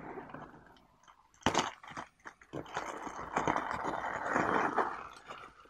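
Clear plastic shrink-wrap crinkling and crackling as it is pulled off a cardboard tea box, with one sharp crackle about a second and a half in and a longer spell of steady crinkling in the second half.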